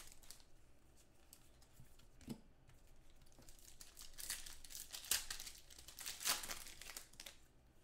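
Plastic trading-card packaging crinkling and rustling faintly in short bursts as cards are handled, busiest in the second half.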